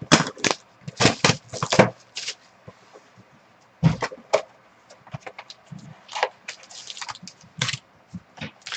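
Hands handling boxes and trading cards on a tabletop: an irregular run of short taps, clicks and rustles, with one heavier knock about four seconds in.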